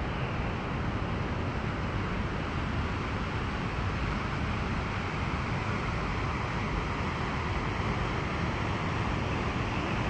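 Waterfall water rushing: a steady, even noise that holds level throughout.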